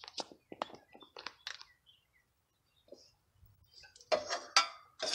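Scattered clicks and light knocks of small engine parts and tools being handled during reassembly of a generator's carburetor and air filter, with a louder clatter about four seconds in and another knock just before the end.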